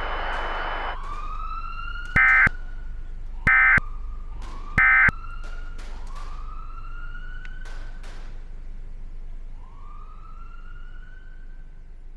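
Several police sirens wailing, each wail rising in pitch and overlapping the next, growing gradually fainter. Early on there are three loud short bursts about a second and a half apart, and fainter sharp cracks between them.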